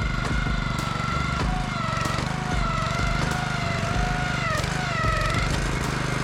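Walk-behind core aerator running steadily, its small engine droning with a whine that wavers up and down in pitch as it works over compacted infield.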